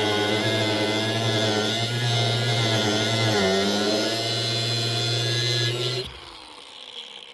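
A power cutting tool running steadily while cutting through a rail, its pitch dipping briefly under load partway through. It shuts off about six seconds in and winds down.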